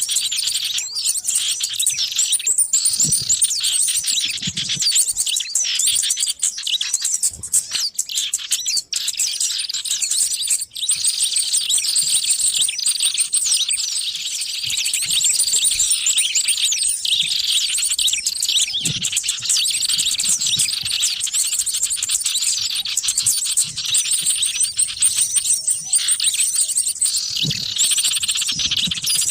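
Dense, continuous chatter of many small birds chirping and trilling over one another, high-pitched and unbroken: a pikat lure recording of noisy small-bird calls, used to draw wild birds in.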